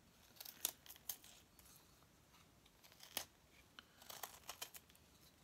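Carving knife cutting into a laminated plywood propeller blank: a few faint, separate sharp cuts and scrapes of the blade through the wood, bunched near the start, about three seconds in, and around four seconds.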